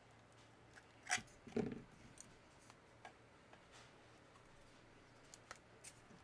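Plastic casing of a laptop battery pack being cracked and snipped apart with a hand tool: a few sharp clicks and snaps, the loudest two a little over a second in, with smaller ticks after.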